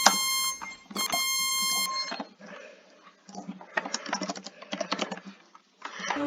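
Two electronic alarm beeps of about a second each, a buzzy tone with many overtones. They are followed by a few seconds of irregular clicking from computer keyboard typing.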